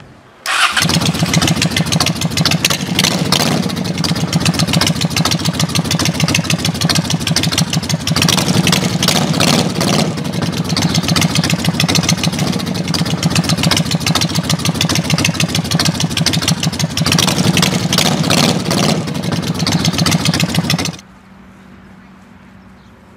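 A V-twin bobber motorcycle with wrapped exhaust pipes running loud, revved up a few times. It starts abruptly about half a second in and cuts off near the end.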